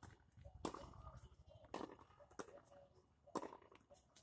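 Tennis ball rally on a hard court: four sharp pops of the ball off racquet strings and the court surface, roughly a second apart.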